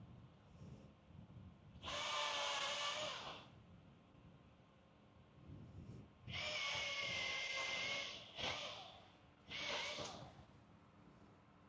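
Distant chainsaw revving in bursts of one to two seconds, four times, as it cuts trees; each burst comes up suddenly to full throttle, then drops back.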